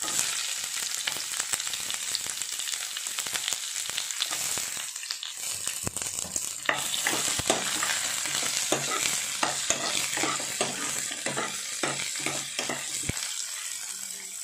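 Sliced onions sizzling in hot oil in a pan. From about halfway through, a metal spoon stirs them, scraping and knocking against the pan in quick strokes.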